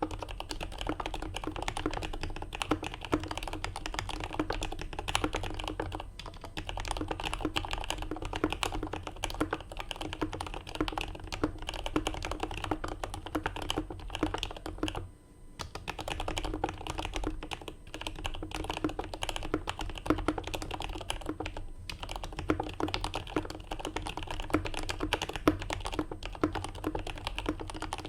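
Fast, continuous typing on a mechanical keyboard with lubed Turquoise Tealios linear switches, an aluminium plate and GMK keycaps: a dense run of keystrokes, with a short pause about halfway through.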